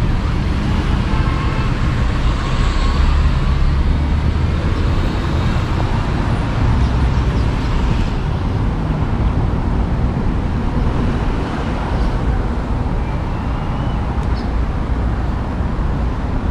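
Steady rush of road traffic with wind noise on the microphone from riding along. The wind gives it a heavy low rumble, and it gets a little quieter in the second half.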